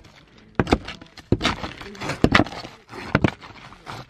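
A hammer knocking and scraping at old asphalt shingles on wooden roof boards, prying and tearing them up: sharp knocks in small clusters about once a second, with gritty scraping between.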